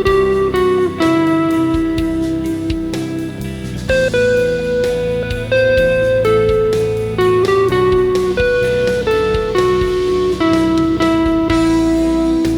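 Electric guitar improvising a lead line through effects pedals: single sustained, singing notes over an ambient rock backing track with drums and bass.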